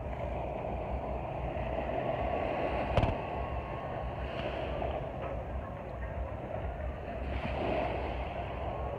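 Steady rumbling noise, with a single sharp click about three seconds in.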